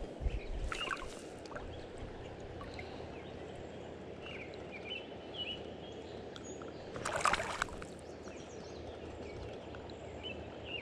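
River water flowing and lapping steadily close to the microphone. About seven seconds in there is a brief loud splash as the hooked brown trout thrashes at the surface.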